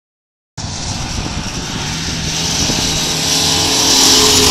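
Nissan Patrol SUV engine running hard as it drives up a sand dune and draws near, growing louder, under a strong steady hiss. The sound cuts in about half a second in.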